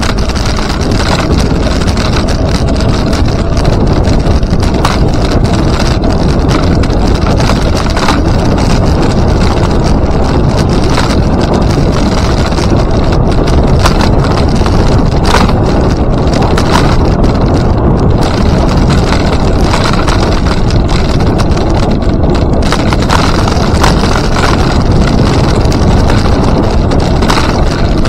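Steady loud rumble of wind buffeting the microphone during a ride, with occasional faint short ticks.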